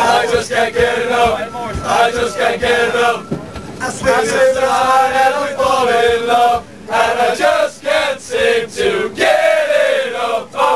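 A group of Irish football supporters chanting a football song together, loud, in a packed tram carriage.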